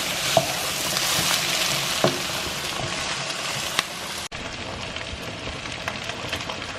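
Vegetables sizzling in a frying pan on the stove, a steady hiss with a few light clicks. There is a brief break a little past four seconds in, after which the sizzle is duller.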